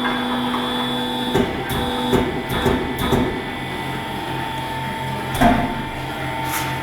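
Motor of a large-wheel tyre-changing machine running with a steady hum, stopping about a second and a half in. Several sharp metallic knocks and clanks follow, spaced irregularly over a lower background hum.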